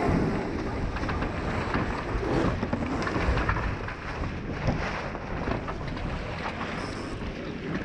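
Water rushing and splashing along the hull of a Melges 24 sailboat moving fast under spinnaker, with wind buffeting the microphone.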